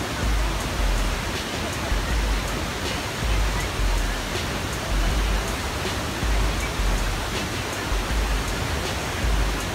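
Wahclella Falls pouring into its plunge pool: a loud, steady rush of falling water.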